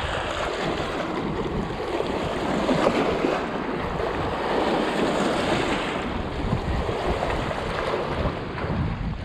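River water lapping and splashing against shoreline rocks, with wind buffeting the microphone.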